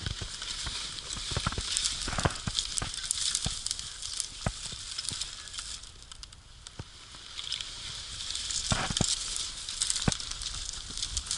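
Footsteps crunching through snow in boots fitted with ice cleats, with dry twigs and branches snapping and scraping past, giving a run of sharp crackles. The crunching eases for a moment a little past the middle, then picks up again louder.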